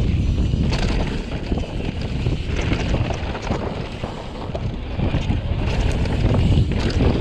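Specialized Turbo Levo electric mountain bike ridden fast down a dirt singletrack: wind rumbling on the camera microphone, tyres rolling over dirt and leaves, and frequent clicks and rattles from the bike over bumps.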